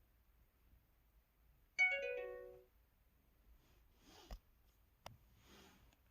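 LG-KU2800 phone's harp folder sound: a short run of plucked, harp-like notes about two seconds in. Near the end come two brief papery swishes, each with a click, the phone's Book folder sound.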